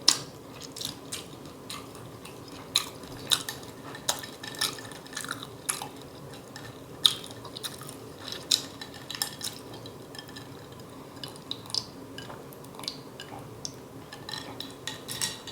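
Close-miked eating sounds: wet lip smacks and chewing clicks, coming irregularly several times a second.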